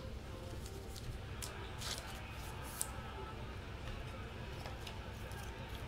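Faint rustles and a few light ticks of trading cards being handled and set down, over a steady low hum.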